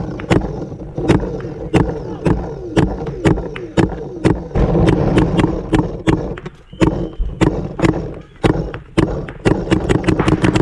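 Paintball markers firing: sharp pops at irregular intervals, bunching into a quick run of shots near the end.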